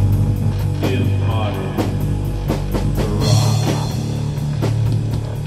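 Rock music with a drum kit and guitar, a steady fast beat over heavy bass: an intro theme.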